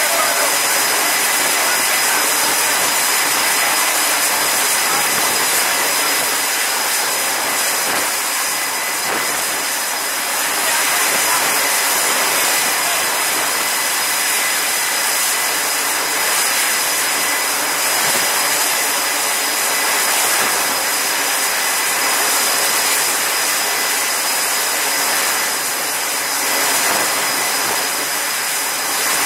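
Steady jet-engine noise on an aircraft carrier's flight deck: an even, loud hiss with a thin high whine over it.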